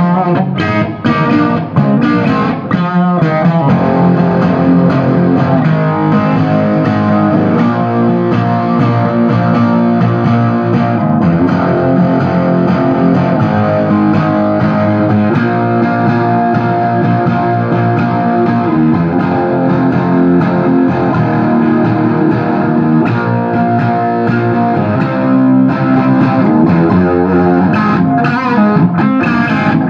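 Gibson SG Standard electric guitar played loud through a Marshall 1959HW Super Lead all-valve head and two 4x12 cabinets at full volume, giving a distorted hard-rock riff. Short choppy chords in the first few seconds and again near the end, with ringing held chords and riffing in between.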